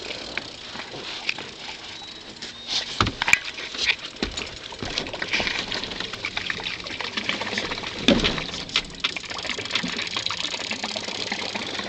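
Water splashing and pattering as a hooked channel catfish thrashes at the surface, with a few sharp knocks about three seconds in and again about eight seconds in.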